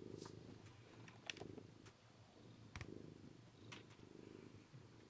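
A cat purring softly, its low rumble swelling and fading in a steady rhythm of about one breath cycle every second or less, with a few faint clicks.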